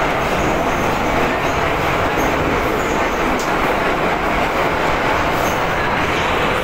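Metro train running at speed through a tunnel, heard from inside the car: a loud, steady rush of wheel-on-rail noise with a faint steady hum of tones through it.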